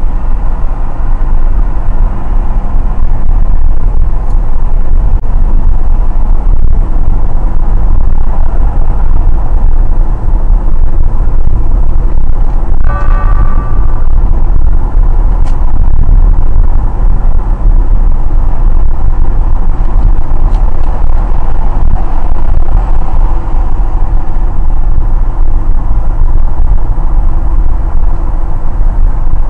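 Steady road, wind and engine noise heard inside a car cabin at highway speed, heaviest in the low end. A short pitched tone sounds about halfway through.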